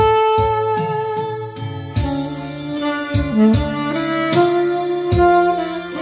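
Saxophone playing a slow melody, a long held note at the start and then moving through several notes, over a backing track with a bass line and a steady drum beat.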